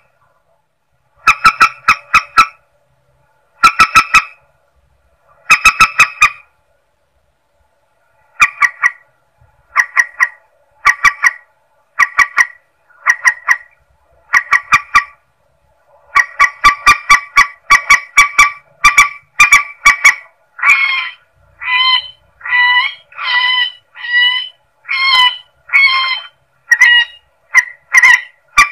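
Recorded calls of the mandar sawah rail, played as a hunting lure: bursts of four to six rapid clipped notes, repeated every second or two. About halfway through they run together into a continuous series of harsher, more drawn-out notes.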